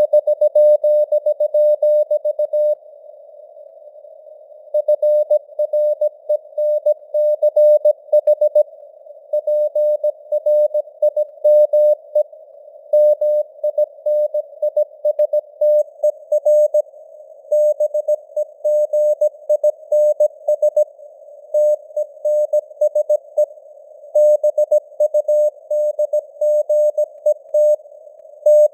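Morse code (CW) sent at 17 words per minute: a single steady mid-pitched tone keyed on and off in dots and dashes, over a narrow hiss of simulated radio noise. The keying stops for about two seconds a few seconds in, then carries on.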